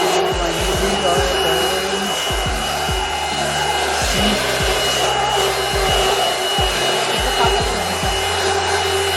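Black+Decker BHFE620J 3-in-1 stick vacuum running steadily with a constant high whine, sucking up pet hair. Irregular low knocks come through as the nozzle is worked over the surface.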